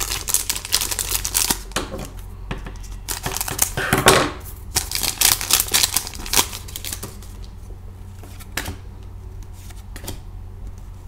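Foil wrapper of a Classic Signatures hockey card pack crinkling and tearing as it is opened by hand: a rapid run of crackles and clicks for the first six seconds or so, then fewer, sparser clicks as the cards are slid out and handled.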